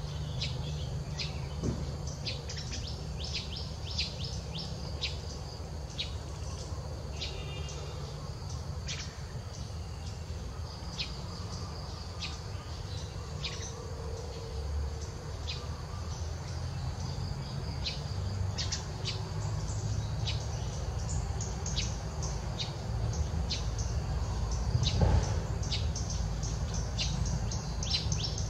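Birds chirping in short, repeated high calls over a steady low rumble, with one dull thump near the end.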